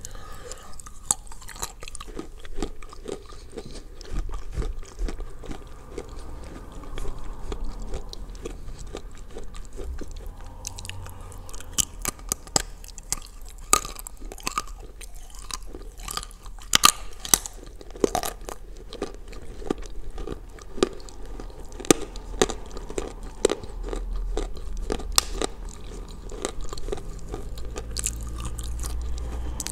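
Biting and chewing pieces of Ural edible clay soaked in blue Uzbek clay: many sharp crunches, thickest in the middle of the stretch, over softer wet chewing. The clay has gone much softer from the soaking.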